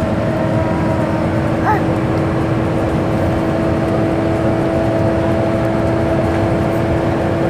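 Steady engine drone inside a moving passenger vehicle's cabin: a low rumble with a constant hum. A brief high chirp comes about two seconds in.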